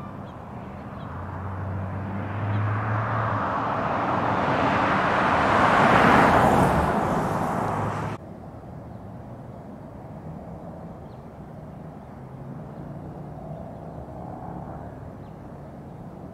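A car approaching along a street, its road noise growing steadily louder for several seconds and cutting off suddenly about eight seconds in. After that there is a quieter outdoor background with faint distant traffic.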